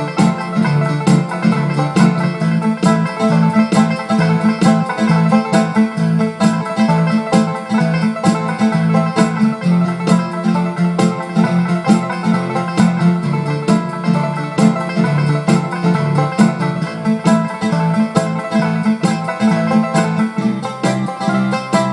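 Instrumental bluegrass-flavoured song: banjo picking over bass, drums, 12-string guitar and mandolin, with a steady beat.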